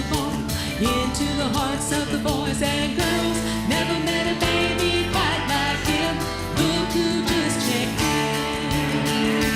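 Gospel vocal group singing in harmony over instrumental accompaniment with a steady beat.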